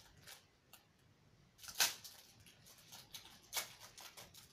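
Rustling and crinkling of a clear plastic packet being handled and opened, with a sharp crackle just before two seconds in and another a little after three and a half seconds.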